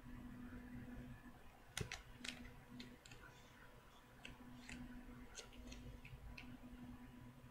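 Soft scattered clicks and crackles of duct tape being handled, unstuck and pressed down, about a dozen sharp ticks with the loudest about two seconds in, over a faint low hum.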